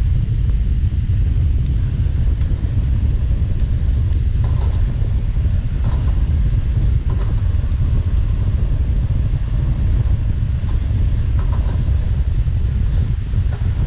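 Gas wok burner running with a loud, steady deep rumble under a wok of noodles being stir-fried, with a few faint clinks of the steel ladle against the wok.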